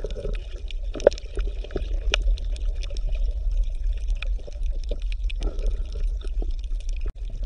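Underwater water ambience: a steady low rumble of moving water with many small scattered clicks and crackles.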